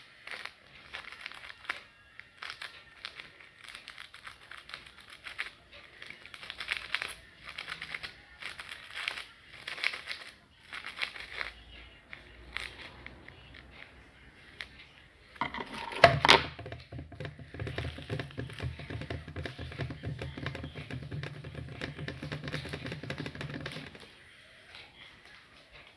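A thin metal drink can being crinkled and cut at with a small metal tool: a long run of short crackling, crinkling strokes, then a loud crunch about 16 seconds in, followed by a steady low hum that lasts about eight seconds and stops shortly before the end.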